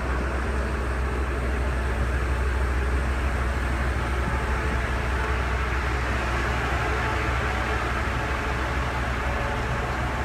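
Propane-fuelled school bus engine, the Ford 6.8-litre V10 of a 2017 Blue Bird Vision, idling with a steady low rumble and a hiss above it.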